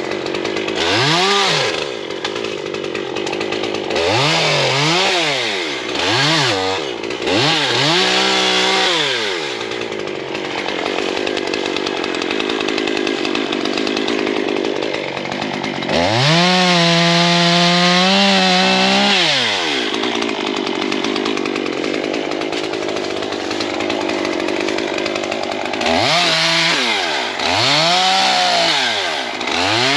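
Stihl chainsaw revved up and back down in short bursts while cutting away small limbs and debris to clear a path, idling between cuts, with one longer stretch at full throttle of about three and a half seconds about halfway through.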